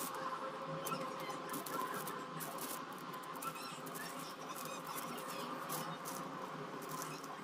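Diamond-painting pen tapping and pressing resin drills onto the sticky canvas: a run of small, irregular clicks and taps over a steady faint hum.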